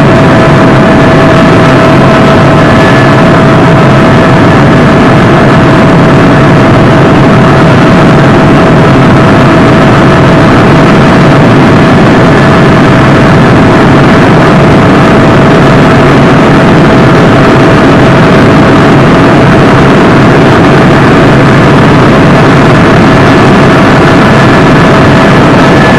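Helicopter in flight heard from inside the cabin: a loud, steady drone of engine and rotor with a constant whine over it.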